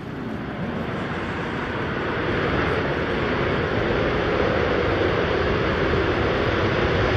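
Jet engines of four F/A-18 Super Hornets running at takeoff power as the formation starts its takeoff roll. The noise is dense and even, swelling over the first two or three seconds and then holding steady.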